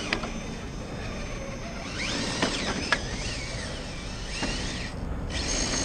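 Brushless motor and drivetrain of an RC rock crawler whining under load as it picks its way between rocks, the whine rising and falling in pitch with the throttle. A few sharp clicks and knocks of the tires and chassis against rock.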